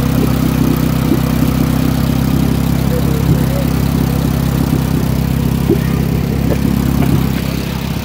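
Car engine idling steadily, a low even hum heard up close at the open engine bay, with a few faint clicks.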